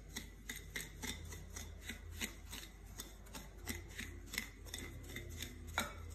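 Wire whisk working butter into gritty brown sugar in a glass bowl. It gives faint rasping scrapes and light clicks, a few strokes a second, with one louder clack near the end.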